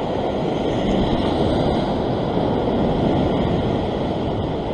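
Rough sea surf washing and breaking against a rock ledge, a steady rushing noise, with wind buffeting the microphone.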